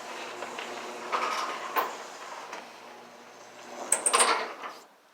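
Craftsman garage door opener running as the door comes down, with a few knocks along the way and a louder rattle about four seconds in; the sound stops about a second later.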